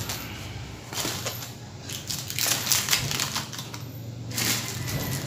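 Plastic packaging rustling and crinkling in several bursts with small clicks as it is handled.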